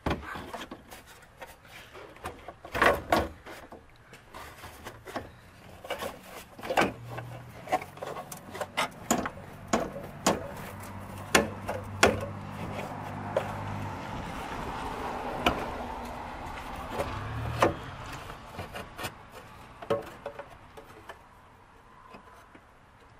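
Irregular clicks, knocks and rubbing of a hard plastic cold-air-intake airbox being handled and pushed into place in a truck's engine bay.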